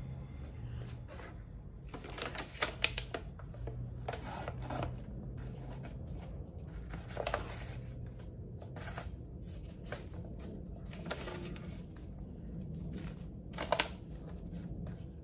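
Ribbon being pulled off and stiff wrapping paper rustling and crinkling as a gift-wrapped box is handled, in several short bursts, with a sharper crackle near the end.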